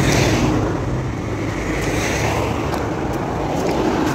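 Street traffic noise: car engines running and tyres on the road, with wind rushing over the microphone.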